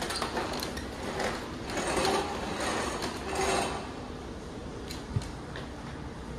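Simplicity commercial upright vacuum being pushed back and forth over a hard terrazzo floor, rattling and clattering in surges with each of about five strokes, then settling quieter near the end.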